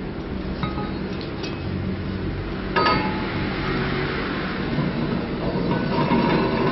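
Metal parts clinking during machine assembly: a few light clinks, then a sharp ringing metal knock about three seconds in, over a steady low mechanical hum.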